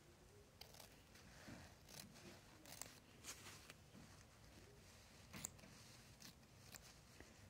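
Near silence broken by about nine faint, irregular small clicks and snips from handling embroidery cloth and tools, the clearest about two-thirds of the way through.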